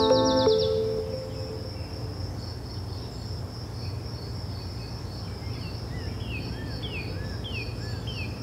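Music fades out within the first second, leaving a steady, rapidly pulsing high-pitched chirping of insects over a low hum. From a little past the middle, several short falling chirps repeat at a regular pace.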